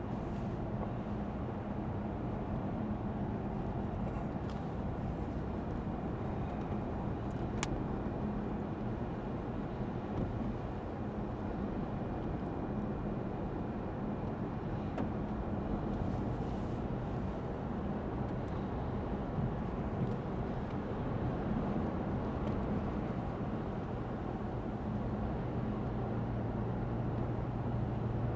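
Steady road noise of a Lexus ES 350 F Sport driving, heard from inside the cabin: a low V6 engine hum under tyre and road rumble, with one brief sharp tick about eight seconds in.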